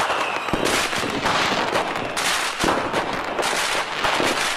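Fireworks going off in a dense barrage: crackling and sharp bangs in overlapping clusters, with no pause.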